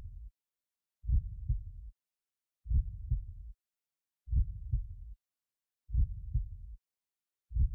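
A slow, low heartbeat sound effect: a double beat repeating about every one and a half seconds, with silence between the beats.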